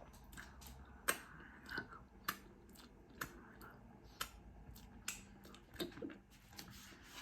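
A person chewing food close to the microphone, with irregular wet mouth clicks.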